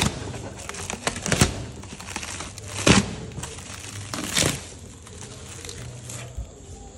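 Clear plastic wrapping film crinkling and crackling as it is pulled and peeled away by hand, with four sharper, louder crackles about a second and a half apart, then quieter for the last couple of seconds.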